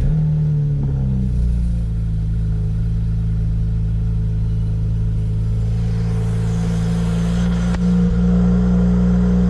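BMW 335i's twin-turbo N54 inline-six idling just after start-up, a steady low exhaust drone heard from the cabin with the window partly down. The pitch shifts about a second in, then holds steady.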